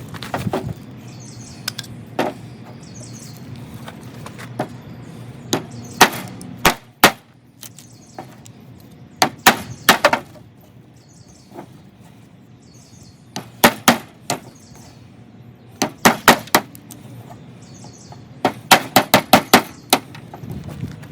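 Sharp blows on wood, in short clusters of two to six strikes, breaking apart a rotten, spalted water oak log.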